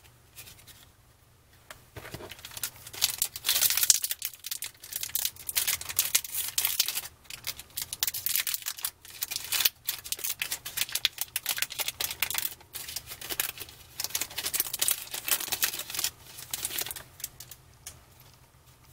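Foil trading-card pack being torn open and crinkled in the hands: a long run of dense crackling and rustling that dies away near the end.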